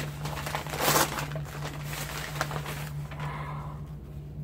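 Packaging rustling and crinkling as it is handled and unwrapped, loudest about a second in and dying away after about three seconds, over a steady low hum.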